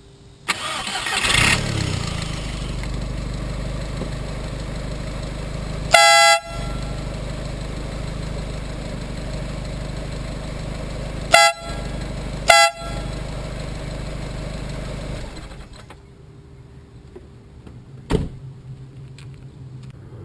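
Aftermarket air horn with its own electric air pump, sounding three short blasts: one about six seconds in, then two close together about five seconds later. Under it, an engine starts and runs steadily, fading away a few seconds before the end.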